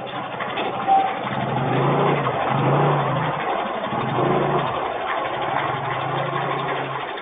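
A motor vehicle's engine running, its low note rising and falling, over a steady hiss.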